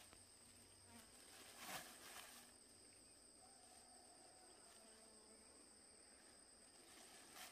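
Insects trilling faintly and steadily in two high, unbroken tones, with two faint knocks about two seconds in.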